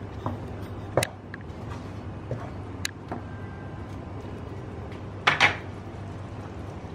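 Thick curry gravy simmering in a pan on a low flame, with a few sharp clicks and one short, louder noisy burst about five seconds in.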